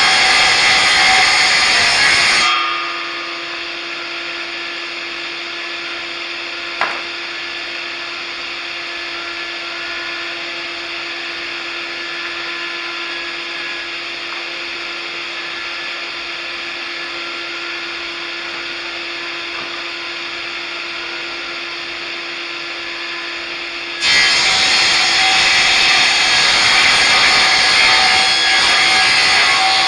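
Power saw cutting timber, a loud steady noise that drops suddenly a couple of seconds in to a quieter steady hum with one clear tone. There is a single sharp click partway through, and the loud cutting noise comes back abruptly near the end.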